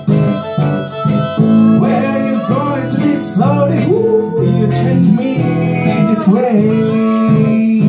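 Live band playing a country number without vocals: electric guitar chords under a lead line that slides up and down in pitch, with fiddle.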